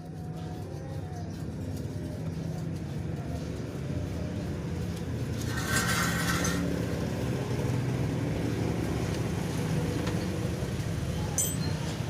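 Electric water-pump motor driving a homemade blower, running with a steady hum and rush of air, with a brief louder hiss about halfway through.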